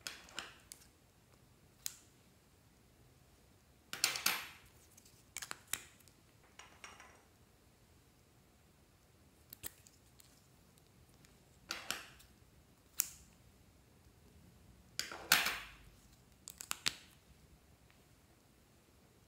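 Gold metal lipstick cases being handled: caps pulled off and pushed on, with sharp clicks and short scraping rasps about ten times, the loudest about four seconds in and near fifteen seconds in.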